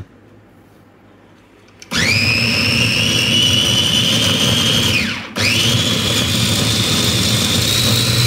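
Silver Crest electric chopper's motor whirring its blades through boiled meat, run in two presses. About two seconds in it starts with a rising whine and runs steadily, winds down briefly when released, then starts again and runs on.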